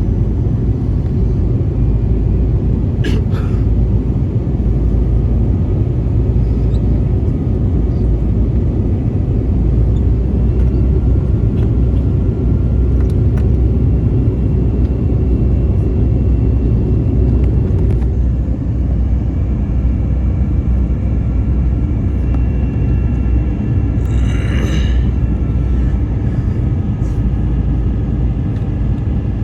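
Steady, loud, low cabin rumble of an Airbus A321 airliner in flight on descent: engine and airflow noise heard from a passenger seat. A brief click comes about three seconds in, and a short rustling burst about 24 seconds in.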